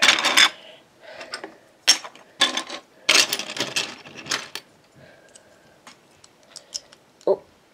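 Small plastic Lego pieces clattering and clicking in irregular bursts as they are handled and sorted through, the busiest rattle about three to four and a half seconds in, then a few scattered light ticks.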